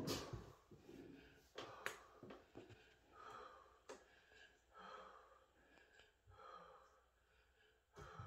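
Faint, slow breathing: three soft breaths about a second and a half apart, with a few small clicks.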